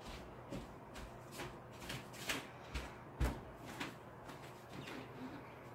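Faint, scattered household knocks and clicks, the loudest about three seconds in.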